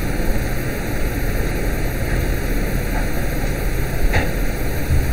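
Steady background noise: an even hiss over a low hum, with a faint click about four seconds in.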